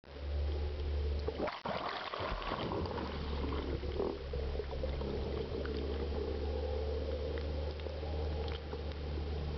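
Underwater sound of a diver being towed on a hydroplane: a steady low drone from the towing boat's motor with water rushing past the camera. The drone drops out briefly about a second and a half in, then returns.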